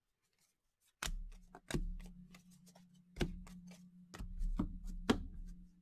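Hands handling a stack of trading cards: a run of sharp taps and clicks as the cards are flicked and moved, starting about a second in, over a low steady hum.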